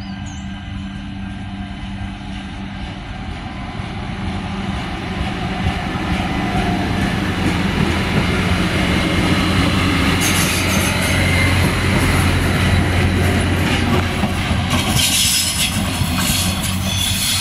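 3000/3100 class diesel railcars running through a station, their engines and wheels growing louder as a train passes close. High wheel squeal comes about ten seconds in and again near the end.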